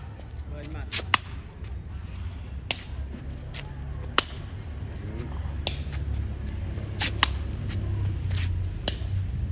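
Sharp taps of a shuttlecock being kicked back and forth, one every second or two, some in quick pairs, over a steady low rumble.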